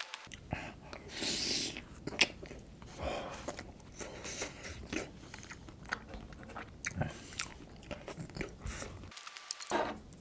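Close-miked chewing of mint chocolate chip ice cream, with wet mouth sounds and many small sharp crunches from the crunchy chocolate balls in it.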